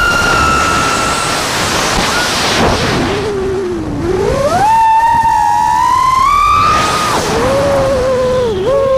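FPV quadcopter's brushless motors whining, their pitch rising and falling with the throttle over a rushing noise. The pitch starts high, sinks low about three seconds in, climbs back and holds high for a couple of seconds, then drops again near the end.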